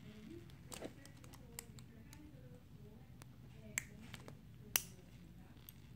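Small metal suture scissors snipping stitches during suture removal: a handful of faint, sharp clicks, with the loudest about three-quarters of the way through.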